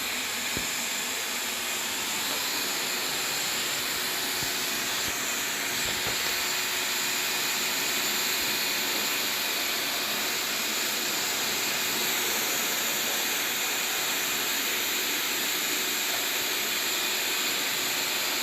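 Steady hissing spray of water, running evenly throughout, with a faint steady hum under it.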